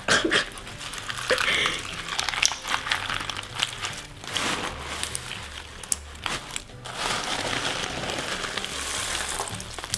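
Hands working through a tub of clear slime packed with cut plastic drinking-straw pieces: a dense, irregular crunching and crackling of the straw pieces being pressed and mixed.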